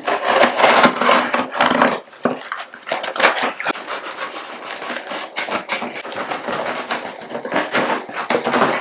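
Drone packaging box being handled and opened: a run of irregular scraping and rubbing noises, loudest in the first two seconds and again around three seconds in.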